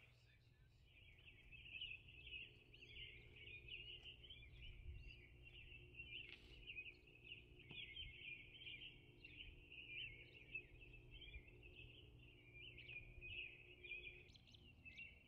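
Faint outdoor chorus of many small, high chirps, dense and unbroken, over a low steady hum.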